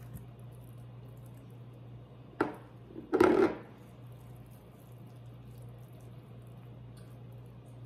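A hand pushing herb butter under raw turkey skin: a sharp click about two and a half seconds in, then a short wet squelch just after, over a steady low hum.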